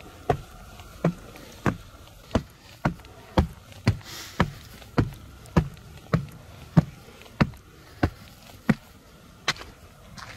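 Footsteps climbing a stairway at a steady walking pace: about sixteen firm footfalls, one every half-second or so.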